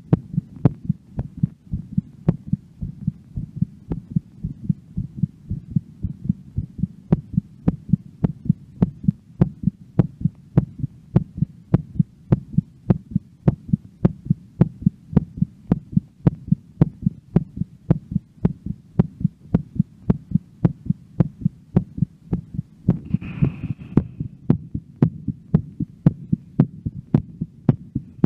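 A woman's heart beating fast after a workout: a steady, even pulse of about two beats a second. A breath is heard once, late on.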